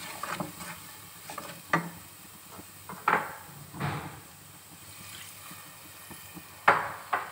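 Wooden spoon stirring and scraping a sizzling spice masala around a metal pot, with several sharper scrapes or knocks of the spoon against the pot, the loudest near the end.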